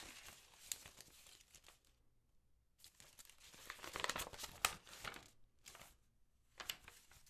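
Paper envelope being torn open and handled, crinkling and rustling in bursts. There is a short pause about two seconds in, and the loudest tearing and crackling comes around four to five seconds in.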